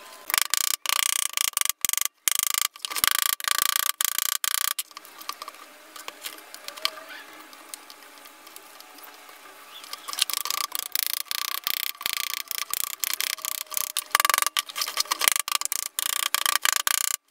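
A plaster mold being broken apart and scraped away by hand and with a wooden stick to free a silicone casting: dense crackling, crunching and scraping, in two spells with a quieter stretch in the middle.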